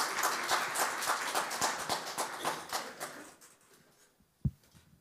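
Audience applauding, a roomful of people clapping, dying away about three seconds in; a single low thump near the end.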